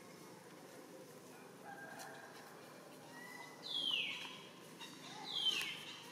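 Two short, high-pitched animal calls about a second and a half apart, each sliding sharply down in pitch.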